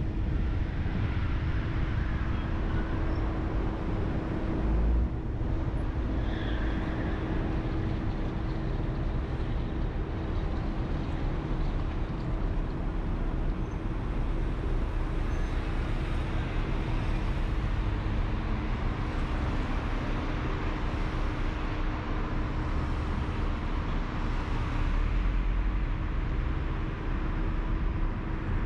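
Car driving along city streets: steady road and tyre noise with a low rumble and a constant low hum.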